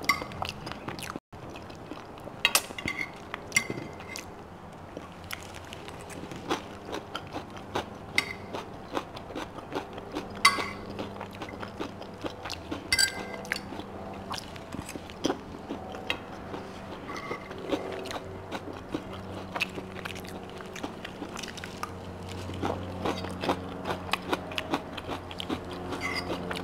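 A person chewing and eating food close to the microphone, with scattered short clicks and scrapes of a fork against a plate.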